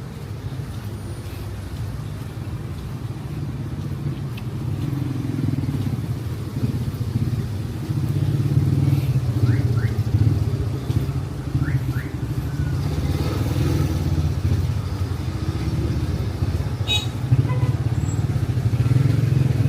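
Street traffic with motor vehicles running and passing close by, a steady low engine rumble that swells louder about eight seconds in.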